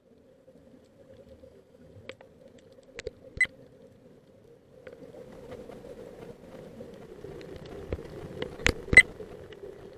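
Underwater sound heard through a diving camera's housing: a muffled steady hum with scattered sharp clicks and knocks, a few in the first half and two loud ones close together near the end.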